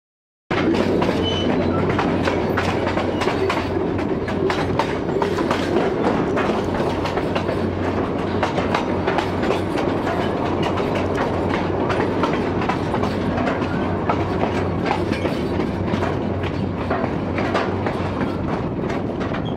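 900 mm narrow-gauge electric train running along the track, heard from beside the carriage: a steady rumble with a low hum and a constant rattle of wheel clicks and knocks. It starts after a brief moment of silence.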